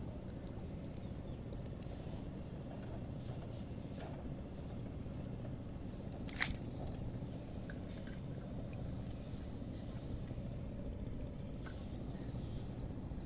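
Small clicks and rustles of a fishing net being handled over a steady low rumble. About halfway through comes one sharp click-splash, the loudest sound, as a fish drops into a steel basin of water.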